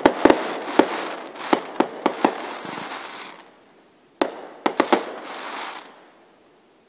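Fireworks: aerial shells bursting in sharp bangs with crackling between them, in two volleys, the second starting about four seconds in. The sound fades out near the end.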